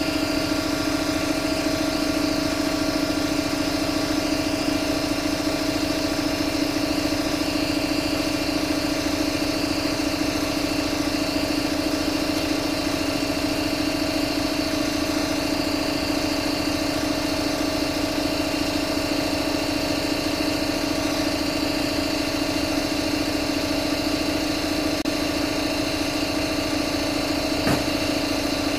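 A motor-driven machine running at a constant speed, giving a steady, unchanging hum.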